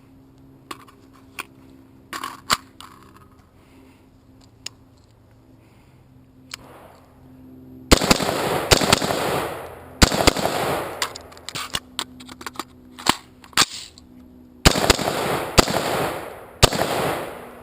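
AR-15 rifle shots: a few faint reports in the first seconds, then, from about eight seconds in, a string of loud shots fired in quick groups, each with a long echoing tail.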